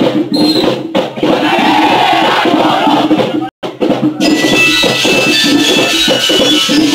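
School marching band drumming, snare and bass drums playing a marching rhythm. After a brief cut-out about three and a half seconds in, steady high ringing notes join the drums.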